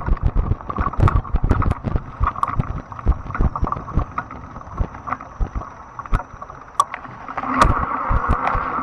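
Fat-tire electric bike ridden over a bumpy dirt trail: the bike rattles and knocks with many sharp jolts over the rumble of the tyres. The electric motor's whine fades in the middle and comes back strongly near the end.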